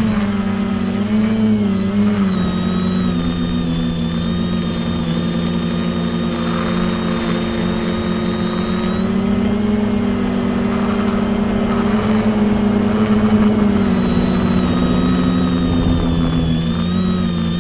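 X550AIOP quadcopter's electric motors and propellers whirring steadily in flight, several close tones from the separate rotors, the pitch wavering slightly up and down as the throttle changes.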